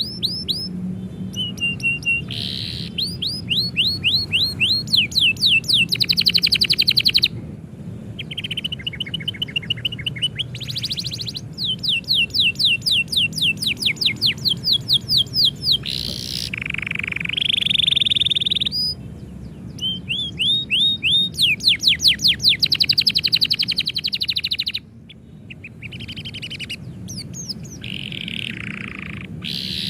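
Domestic canary singing a long song of fast trills, each run made of rapidly repeated down-sweeping whistled notes. The speed and pitch change from one phrase to the next, with short breaks between phrases.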